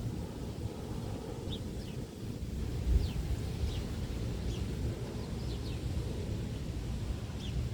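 Wind rumbling on the microphone, with a small bird giving short, falling chirps every second or so.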